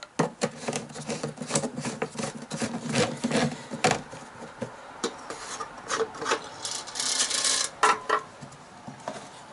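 A plastic gas can and its flexible spout being handled, and the engine's plastic fuel-tank cap unscrewed: a run of sharp clicks and knocks with rasping scrapes, and a longer scrape about seven seconds in.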